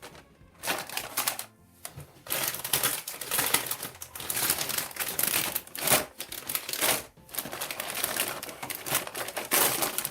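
Bagged plastic model-kit runners crinkling and clattering, with quick clicks and rustles of plastic sheet and parts as they are handled and packed into the box.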